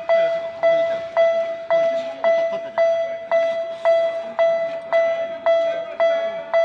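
Railroad crossing warning alarm on a miniature park railway ringing its steady 'kan-kan' at about two strikes a second. Each strike is a clear, ringing tone.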